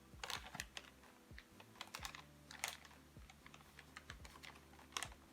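Scattered light clicks and taps of a measuring cup scooping almond flour and knocking against a bowl, irregular, with one louder knock near the end.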